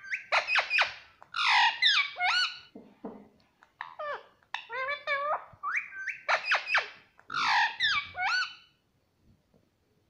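Indian ringneck parakeet chattering: a quick run of high calls that glide up and down in pitch, in several short phrases, stopping near the end.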